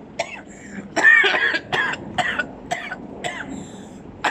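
A man coughing in a fit of short coughs, the loudest about a second in, followed by several more about half a second apart. He is choking on a sip of drink that went down the wrong way.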